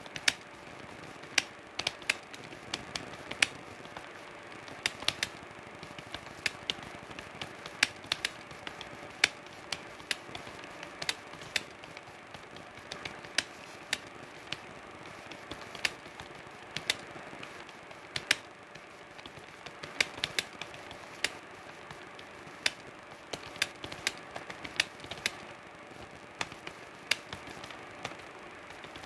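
Typing on a computer keyboard: irregular, sharp key clicks, a few a second, coming in runs with short pauses, over a faint steady hum.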